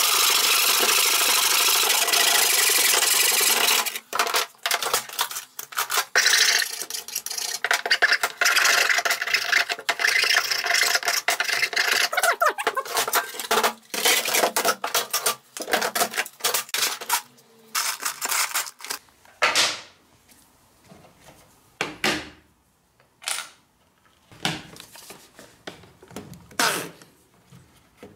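Hand saw cutting through a small wooden block in a mitre box: a steady run of fast back-and-forth strokes, then about four seconds in it breaks into irregular scraping strokes. In the last third it goes mostly quiet, with a few scattered knocks of wood and tools being handled.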